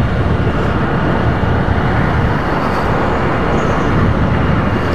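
Small motorcycle riding along steadily at road speed, with its engine running beneath wind rushing over the microphone.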